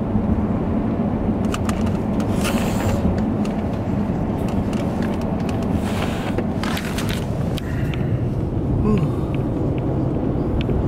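Truck driving on a snowy road, heard from inside the cab: a steady low rumble of engine and tyres, with scattered clicks and rattles and two short bursts of hiss, about two and six seconds in.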